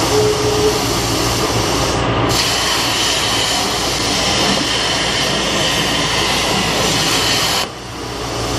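CNC plasma cutter's arc cutting sheet metal: a harsh steady hiss that starts about two seconds in and cuts off suddenly near the end. A steady background roar runs underneath throughout.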